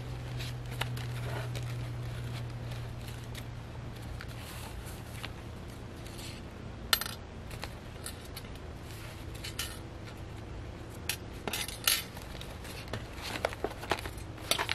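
Handling of a thick hand-bound paper journal: scattered sharp clicks and light taps as it is turned over and its pages and clips knock together, over a steady low hum. The sharpest click comes about seven seconds in, with more around twelve seconds and near the end.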